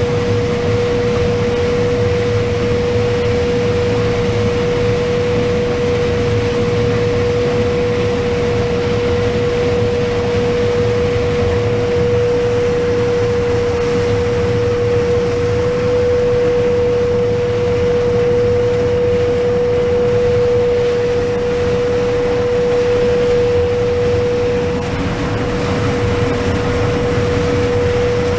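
Combine harvesting corn, heard from inside the cab: a steady low rumble of the running machine with a constant, unwavering whine over it.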